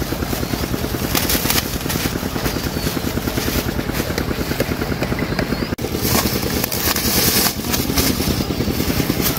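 Small engine running steadily with a fast, even pulse, with short bursts of rushing hiss about a second in and again around six to seven seconds.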